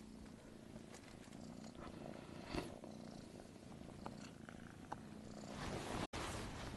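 A cat purring softly, with a few light clicks and some rustling of the satin sheet about five and a half seconds in.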